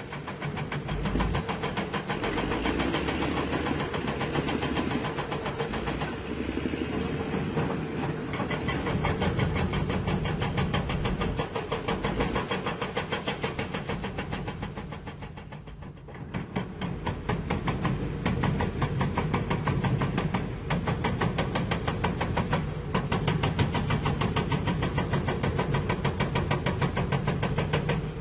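Heavy-equipment diesel engine running with a fast, even pulsing. It eases off about halfway through, then picks up again and runs on.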